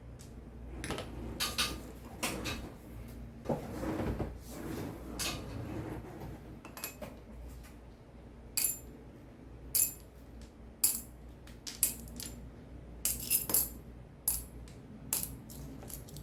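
Cherry keyboard stabilizer parts being taken apart by hand: sharp plastic clicks and light metallic clinks. A few seconds in there is a stretch of rubbing and scraping, then a run of separate crisp clicks.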